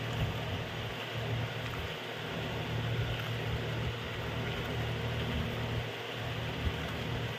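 Steady low mechanical hum of a running electric motor, such as a fan. Under it, soft squishing as a hand kneads minced chicken in a bowl.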